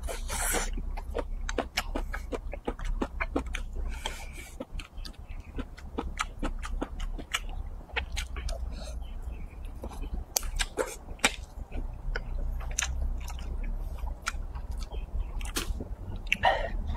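Close-miked chewing and biting of spicy stir-fried chicken wings and glutinous rice shoots: a steady run of short wet mouth clicks and smacks, over a low steady hum.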